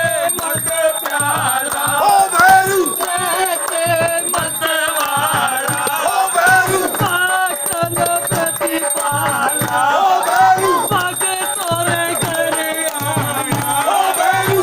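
Devotional aarti music: voices singing a wavering melody over a steady drum beat about twice a second, with rattling percussion.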